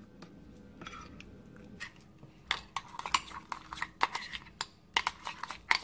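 Metal spoon stirring a thick chili-paste sauce in a glass bowl, clinking against the glass. The clinks are sparse and faint at first, then louder and several a second from about halfway through.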